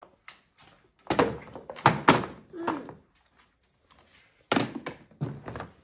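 A run of hard knocks and clatters on a hard plastic tray table, one cluster from about a second to three seconds in and another from about four and a half seconds.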